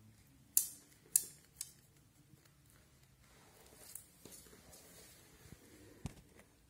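Kittens at play: three sharp clicks in the first two seconds, then light rustling and tapping as a kitten bats and bites a feather wand toy, with a soft thump near the end.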